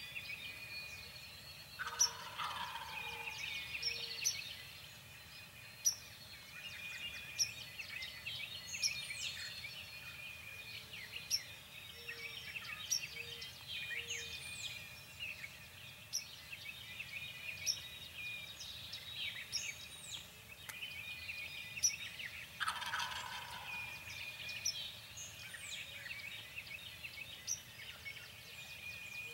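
Wild turkey gobbling twice, about twenty seconds apart, each gobble a rattling call that falls in pitch over a second or so. Small songbirds chirp throughout.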